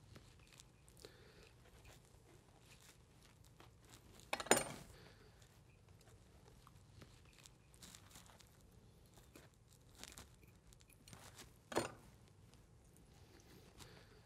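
Faint sounds of a boning knife cutting along the wishbone of a raw whole chicken, with scattered small clicks and two brief, louder sharp clicks, one about four and a half seconds in and one near twelve seconds.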